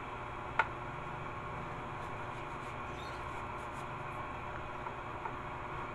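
Kitchen knife slicing chili peppers over a ceramic plate: one sharp click about half a second in, then a few faint ticks, over a steady background hum.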